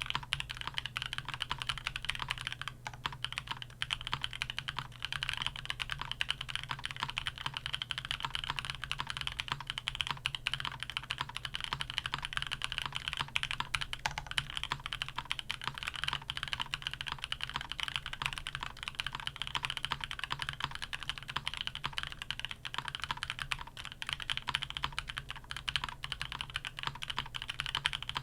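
Continuous fast typing on a custom gasket-mounted mechanical keyboard with Vertex V1 switches, a carbon fiber plate and foam-filled case: a dense, unbroken stream of keystroke clacks.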